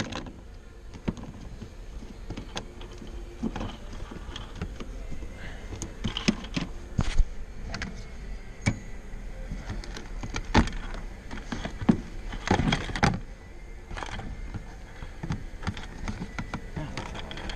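Irregular clicks, knocks and rustling of hands handling and pressing the fuel tank access cover back into place over its sticky silicone seal.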